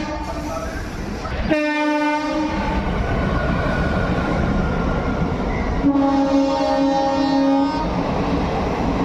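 Train horn sounding twice, a short blast and then a longer one of about two seconds, over the steady rumble and clatter of a moving train.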